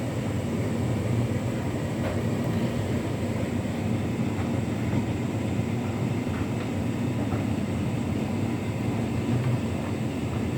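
Hotpoint Ultima S-line tumble dryer running its cool tumble on Standard Cottons: the motor and fan hum steadily as the drum turns, with a few faint knocks from the load tumbling.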